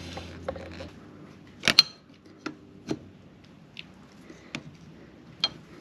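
Handling noise from the choke cable being threaded back into the motorcycle: scattered light clicks and knocks, about half a dozen, the loudest one about two seconds in. A low hum in the background stops about a second in.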